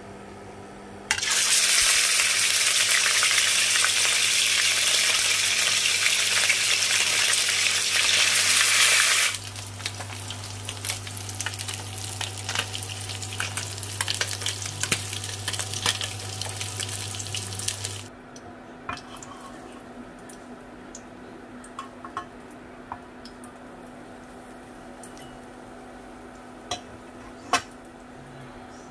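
Fish frying in a wok of hot oil: a loud, dense sizzle starts abruptly about a second in, then drops to a quieter, crackling sizzle about nine seconds in, with a steady low hum beneath. The sizzle stops at about eighteen seconds, leaving scattered faint clicks and a couple of sharper ticks near the end.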